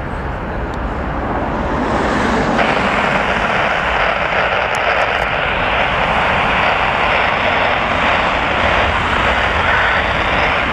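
Jet engines of a British Airways twin-engine airliner at take-off thrust during its take-off roll: a steady jet roar that grows louder over the first couple of seconds, then holds.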